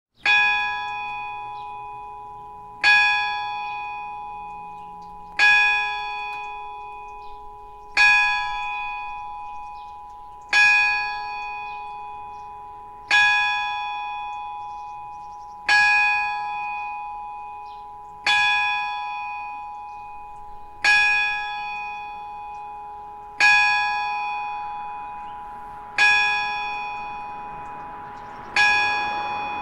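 Single Eijsbouts church bell with a G-sharp strike tone, struck by a hammer about every two and a half seconds, twelve blows in all. Each blow rings out and dies away slowly, and its hum still sounds under the next strike.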